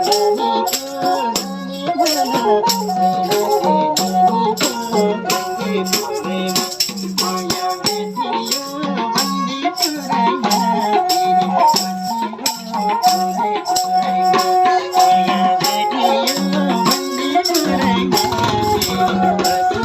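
Nepali folk music: a bowed sarangi playing a wandering melody over a steady, jingling rattle beat with a repeated low drum pulse.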